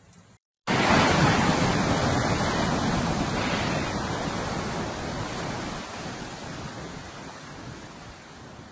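Rushing floodwater of a swollen river in spate, a loud, steady noise that starts suddenly just under a second in and slowly fades.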